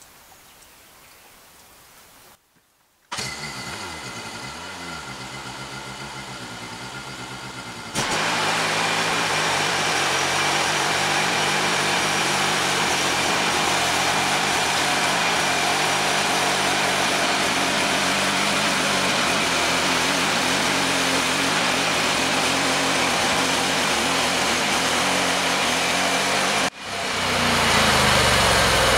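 The engine of a portable bandsaw sawmill starting about three seconds in and idling unevenly. From about eight seconds it runs loud and steady at full throttle as the blade saws through a log. Near the end the engine note falls.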